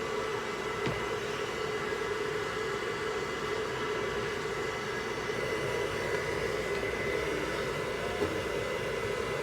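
Hair dryer running steadily with a constant whooshing blow and a thin high whine. There is a small click about a second in.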